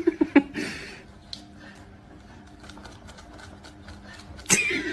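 A cat and a dog scuffling and knocking on a wooden floor as they tussle over a tennis ball: a few sharp knocks right at the start, a short hiss just under a second in, light ticks and taps, then a sudden louder cry-like burst near the end.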